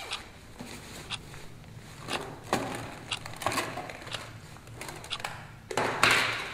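A nylon shoulder bag being unzipped and rummaged through: fabric rustling and small clicks of the things inside being moved, with the loudest rustle near the end.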